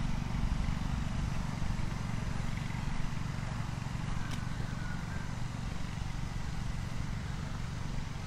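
Steady low rumble of outdoor ambience, with no clear single event standing out.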